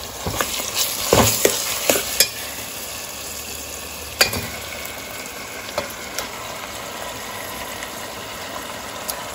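Mutton pieces in green masala sizzling in hot oil in a steel pan on a high flame, with the scrape and clink of a steel ladle stirring them, mostly in the first half.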